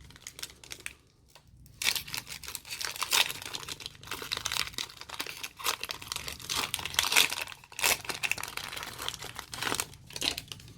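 Foil wrapper of a Pokémon card booster pack being torn open and crinkled, starting about two seconds in and going on in dense crackles until near the end.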